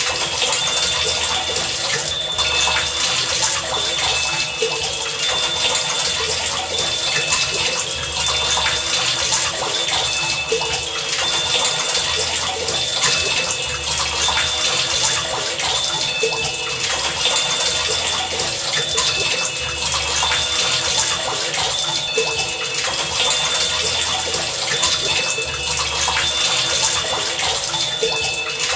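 Heavy rain falling steadily, with a recurring pattern of short high tones and low pulses about every one to two seconds running through it.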